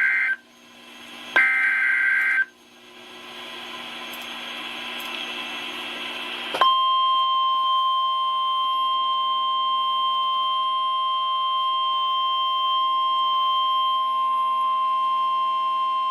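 NOAA Weather Radio alert header: the tail of one warbling SAME digital data burst, then a full burst of about a second, with hiss rising after each. About six and a half seconds in comes the steady 1050 Hz weather radio warning alarm tone, announcing a new warning.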